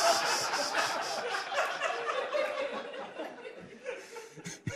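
Studio audience laughing after a joke, the laughter dying away over a few seconds.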